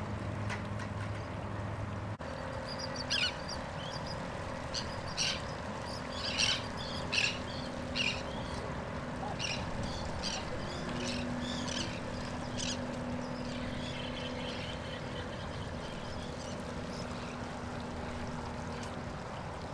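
Birds calling in a series of short, high chirps, about a dozen scattered over ten seconds, over steady wind and water noise.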